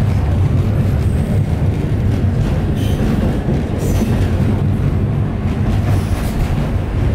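Alishan Forest Railway narrow-gauge train running, heard from inside the passenger carriage as a steady low rumble, with a few brief high-pitched squeals about three and four seconds in.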